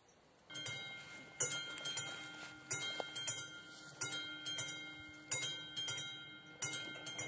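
Railway level-crossing warning bell ringing in repeated strikes about once every second and a quarter, each strike ringing on. It starts about half a second in, as the crossing is activated for an approaching train and before the barriers lower.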